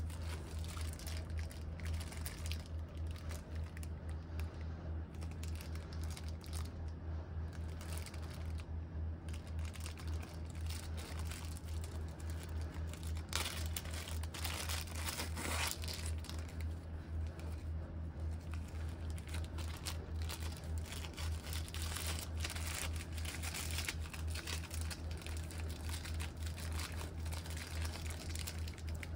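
A thin clear plastic bag being handled and crinkled by hand, with a constant run of irregular small crackles and rustles. A steady low hum sits underneath.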